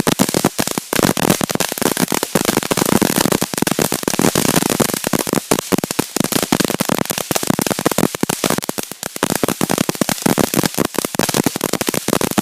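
Small consumer firework cake (a 'short stack') firing a long, dense barrage of rapid crackling pops.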